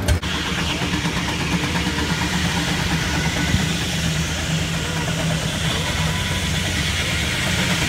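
Steady engine running, a low hum with a hiss above it and no distinct beats.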